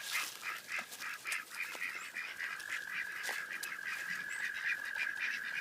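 Ancona ducks quacking in a run of short repeated calls, over a steady high-pitched trill that carries on through the second half.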